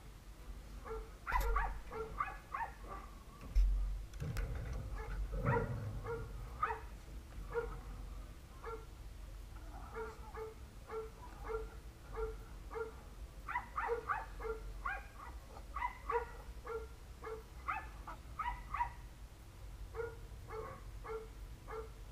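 A dog barking over and over, roughly one to two barks a second with a few short pauses, with a low thump about three and a half seconds in.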